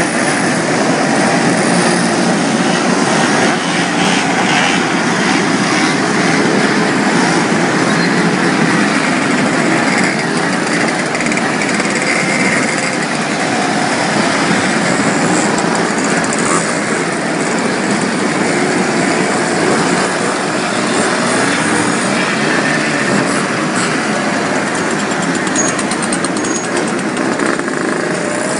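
A pack of Puch mopeds' small two-stroke engines buzzing together as the group rides off and passes by, many overlapping engine notes rising and falling. The dense buzz thins a little about halfway through.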